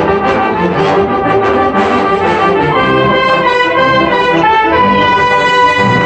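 Instrumental background music with long held notes over a pulsing low part.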